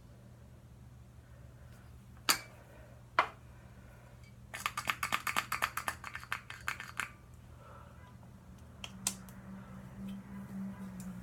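Handling of cosmetic product containers: two sharp clicks, then a rapid run of clicks at about six a second for a couple of seconds, then one more click near the end.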